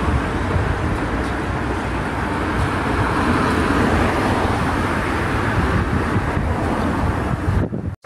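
Road traffic noise on a city street: a steady rush of car engines and tyres, a little fuller in the middle.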